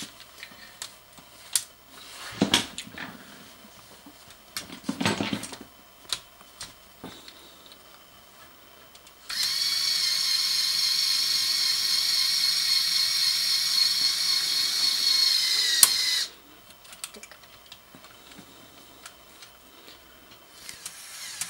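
Lego Technic Power Functions electric motor and its plastic gearing whining steadily for about seven seconds, starting suddenly about nine seconds in and cutting off sharply, as it drives the crane boom up. Before it, a few sharp plastic clicks and knocks from the model being handled.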